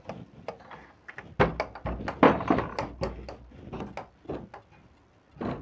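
Heavy wooden charpai (woven string cot) being manoeuvred by hand, its frame knocking and bumping in a quick cluster of knocks and thuds through the middle.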